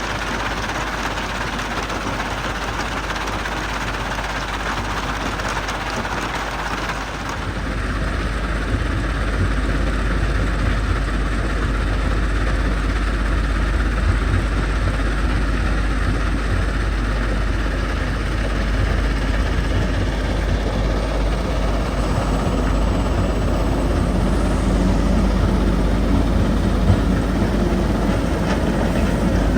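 Heavy quarry machinery running steadily: a Jonsson 1208 mobile jaw crusher and the diesel excavator feeding it. About seven seconds in, the sound shifts to a deeper, louder low rumble.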